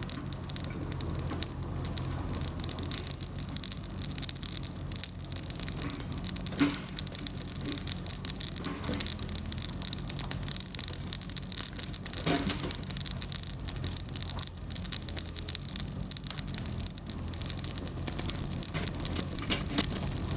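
Kubota KX71-3 mini excavator's diesel engine running steadily, under a dense, continuous crackling and snapping of brush, with a few louder snaps.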